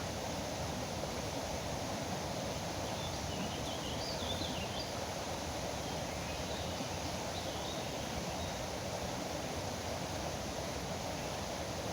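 Steady rush of a flowing, foaming river, with a few faint bird chirps over it, a third of the way in and again a little past halfway.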